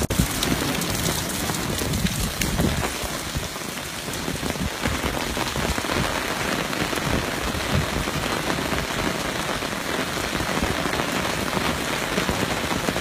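Steady rain falling, an even hiss with fine drop ticks, over the rush of a rain-swollen flooding creek.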